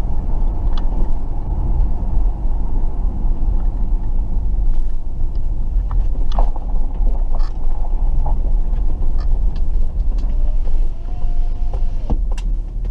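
Cabin noise of a 2005 Dodge Magnum on the road: a steady low engine and road rumble, with a few faint clicks and rattles.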